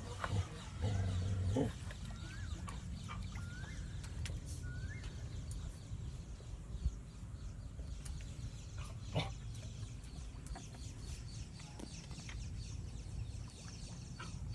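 A few short rising-and-falling bird calls, clustered a couple of seconds in, over a steady low hum with scattered clicks.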